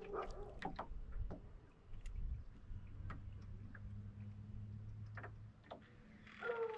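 Scattered light clicks and taps over a low steady hum, the hum fading about five and a half seconds in; a brief pitched sound starts near the end.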